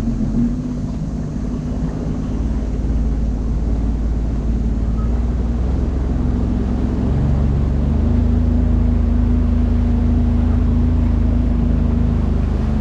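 Sea-Doo personal watercraft engine running steadily while under way, with a low drone that grows a little louder about halfway through.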